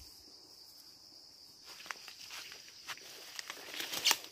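Footsteps brushing and rustling through tall grass and undergrowth on a path, starting about a second and a half in, with the loudest swish near the end. A steady high insect drone runs underneath.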